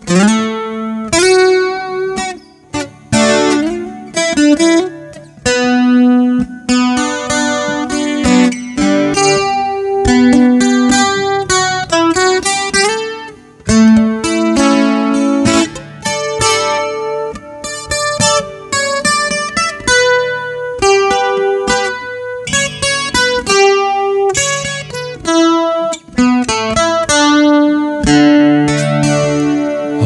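Acoustic guitar playing an instrumental break between verses: a picked single-note melody over bass notes, in slow-rock time in the key of D.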